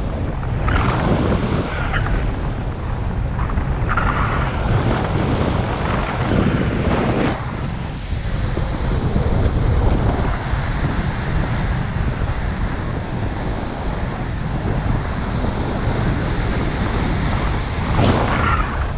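Wind rushing over the microphone of a camera on a paraglider in flight: a steady low rumble, with gusts swelling now and then.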